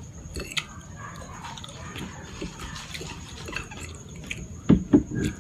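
Close-up wet eating sounds of fettuccine carbonara being chewed, with scattered small clicks of a fork on the plate. Two louder low bumps come close together near the end.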